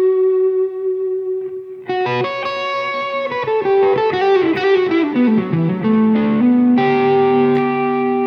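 Overdriven electric guitar played through a Bludotone Mini Skyliner amp, which has a tube preamp and a Class-D power amp. A held note dies away, a new note is struck about two seconds in, a descending run of notes follows, and held notes ring near the end.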